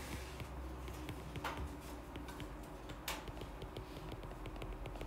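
Faint, quick taps and clicks of a stylus writing on a tablet's glass screen, with two stronger taps about a second and a half and three seconds in, over a low steady hum.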